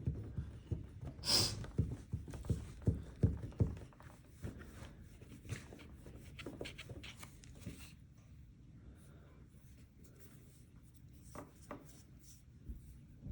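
Wiping and rubbing a phone's glass screen clean, with small handling knocks. One sharper, brighter scrape comes about a second in. The strokes are busiest in the first few seconds and thin out to faint occasional ticks.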